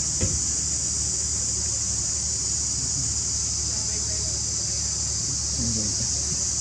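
Insects droning steadily in a high, even buzz, with a low steady hum beneath and a brief knock just after the start.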